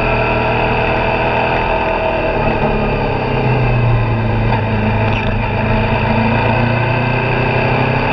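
Suzuki V-Strom 650XT's V-twin engine running under way with wind rush, its pitch stepping up about two and a half seconds in as the bike picks up speed.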